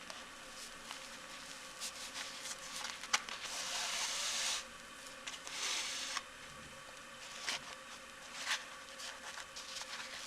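Shoe thread being drawn through material in two longer hissing drags, a few seconds apart, amid small rustles and clicks of handling the slipper and needle.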